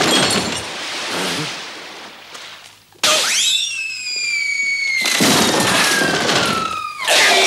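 Cartoon sound effects of crumbling stone: a crash that dies away over the first few seconds. About three seconds in, a long whistle starts suddenly and falls steadily in pitch for about four seconds, with crashing noise under it from about five seconds in and another loud crash near the end.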